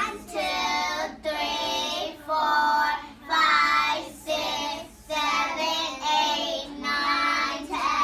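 A class of young children counting aloud together in a slow sing-song chant, about one number a second.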